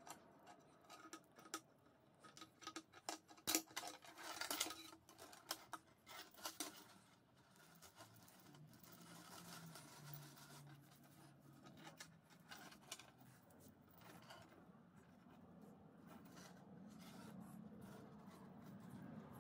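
Faint clicks, scratches and rustles of hands handling electrical tape, a cable and a flexible corrugated metal hose, clustered in the first seven seconds and loudest about four seconds in; after that near silence with a faint low hum.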